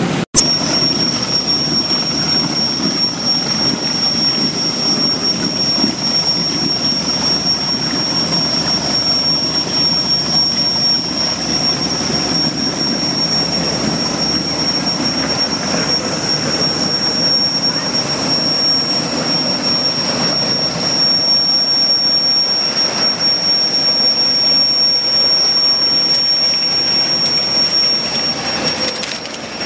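Potato washing line running: a steady rush of machinery and churning, frothing wash water, with a steady high-pitched whine over it.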